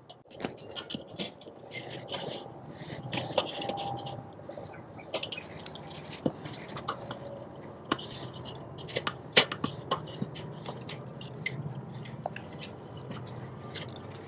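Steel tongs and a spatula clicking and scraping on a Weber kettle grill's cooking grate as a large chuck roast is turned around and slid over, with scattered sharp clicks throughout and the crackle of a chunk of smoking wood burning in the coals.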